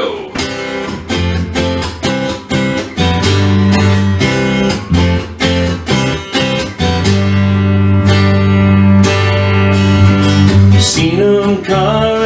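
Acoustic guitar strumming chords, the opening of a folk-blues song, with a singing voice coming in near the end.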